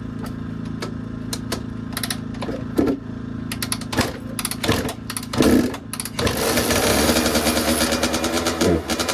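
Kawasaki KX85 single-cylinder two-stroke engine being kick-started for its first start after a fresh top-end rebuild: a few knocking kicks, then it fires about six seconds in and keeps running.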